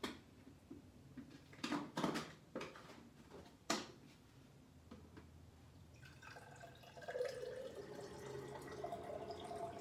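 A few sharp household knocks and clatters in the first four seconds, then water starts running steadily, off in a kitchen, about seven seconds in.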